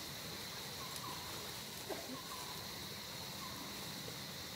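Steady high-pitched insect drone, with short faint chirps repeating about once a second.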